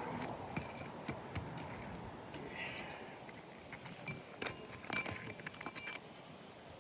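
A metal tool clicking and scraping against asphalt roof shingles and nails while the nails are pried loose, with a cluster of sharp metallic clinks about four to six seconds in.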